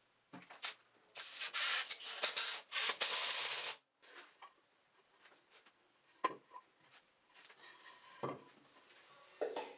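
Scraping and clicking of a hand tool working a steel floating-shelf bracket against a tile wall for a few seconds, stopping abruptly. Later a few separate clicks and a knock as a wooden shelf is slid onto the bracket rods.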